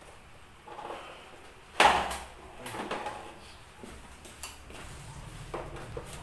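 Plastic fairing panels of a Honda Click 125i scooter being pried and pulled apart: one sharp snap about two seconds in as a retaining clip lets go, then smaller clicks and knocks of the loosened plastic being handled.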